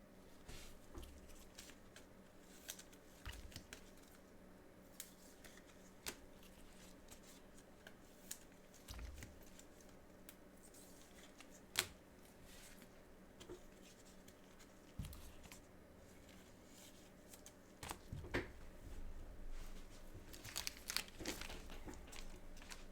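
Faint rustling, tapping and crinkling of trading-card packaging and cards being handled, busier near the end with wrapper crinkling and tearing.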